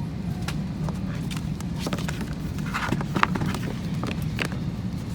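Steady low hum of a parked airliner's cabin during boarding, with scattered clicks and knocks from people moving about, the loudest about three seconds in.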